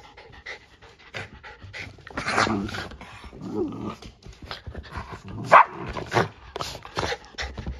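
Shiba Inu panting, with scuffling as it moves about on a quilted sofa cover. A brief sharp sound comes a little past halfway through.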